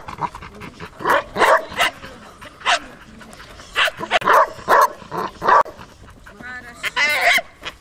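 Doberman barking in short, loud bursts, about a dozen times, in agitation at a helper's bite sleeve during bite-work training. Near the end comes a longer, higher yelping call as it leaps for the sleeve.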